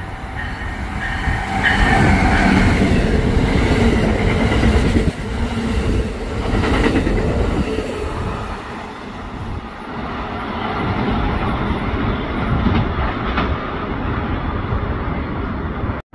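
Amtrak passenger train hauled by an ACS-64 electric locomotive passing close at speed: a steady rumble of wheels on rail with clickety-clack, loudest about two seconds in as the train comes alongside.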